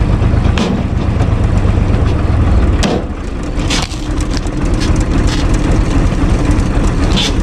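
Universal U445 DT tractor's diesel engine idling steadily, its low sound easing about three seconds in. About four sharp axe blows into a wooden log stump cut through it.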